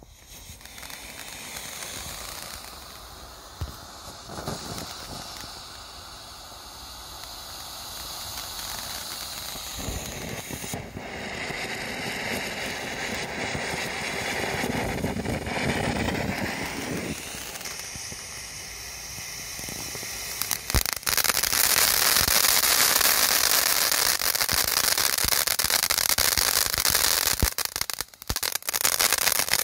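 Helios Feuerwerk ground fountain burning. Its hiss swells and fades, then turns much louder about two-thirds of the way in, with dense crackling.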